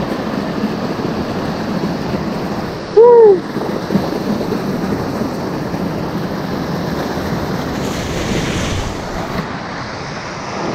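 Steady rush of a stream and waterfall close by, with some wind on the microphone. About three seconds in, a brief loud call that rises then falls in pitch.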